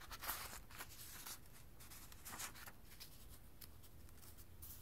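Newsprint pages of a 1982 comic book being turned by hand: a soft paper rustling in the first second and a half, then a few fainter rustles.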